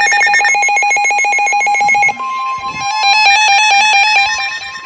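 Several NOAA weather radios going off with their electronic alert alarms, fast-pulsing stepped tones. About two seconds in, the broadcast's steady 1050 Hz warning alert tone starts under them.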